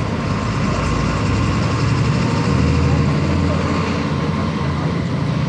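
Diesel engine of a Volkswagen 17.230 EOD bus running steadily under way, a little louder about halfway through.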